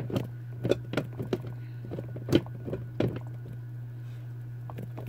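Light, irregular clicks and knocks of small objects being handled, the loudest about two and a half seconds in, over a steady low hum.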